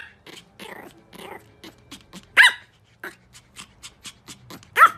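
Pomeranian barking: three sharp, high-pitched barks about two and a half seconds apart, with fainter short sounds between them.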